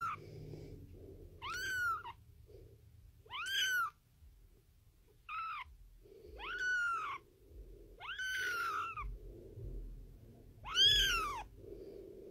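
Very young tabby kitten mewing: six high, thin calls about one to two seconds apart, each rising and then falling in pitch, the last the loudest.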